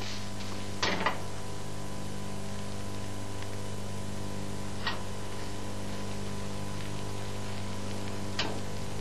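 Fist blows on a frying pan's handle, jolting the omelette in the pan to roll it over: a double knock about a second in, then single knocks near the middle and near the end. Under them runs a steady electrical hum with hiss.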